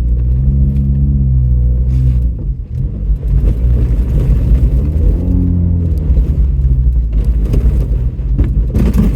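Off-road vehicle's engine running at low speed, its pitch rising and falling twice as the throttle is opened and eased off, with a few knocks and rattles from the body over rough ground, most of them near the end.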